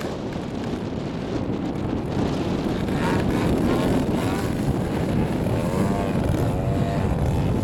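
Radio-controlled aerobatic model airplane flying overhead. Its engine and propeller note bends up and down in pitch around three seconds in and again near the end as it throttles through manoeuvres, over a low rush of wind on the microphone.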